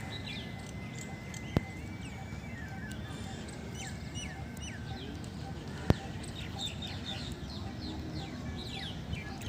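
Small birds chirping over and over in short falling notes, with a steady low rumble beneath. A held high tone sounds for the first two seconds, and two sharp clicks come about one and a half and six seconds in.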